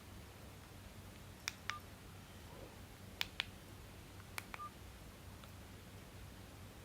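Mini flip phone's keypad buttons pressed three times while scrolling menus, each press a pair of quick faint clicks, the last followed by a short keypad beep.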